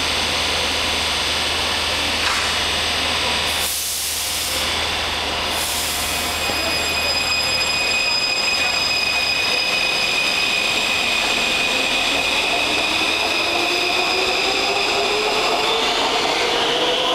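Taipei Metro electric train pulling out of an underground station: a burst of air hiss about four seconds in, then the traction motors' whine, steady at first and rising in pitch as the train gathers speed.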